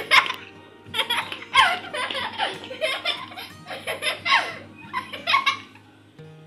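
A young girl laughing in repeated short bursts, over background music.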